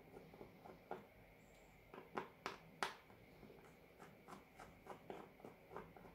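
Faint small clicks and scrapes of hands handling the opened parts of a smartwatch, with three sharper clicks about two to three seconds in.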